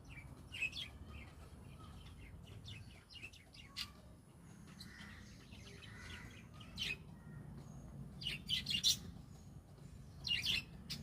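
Birds chirping in short, irregular bursts, the loudest clusters about eight and a half and ten and a half seconds in, over a steady low background rumble.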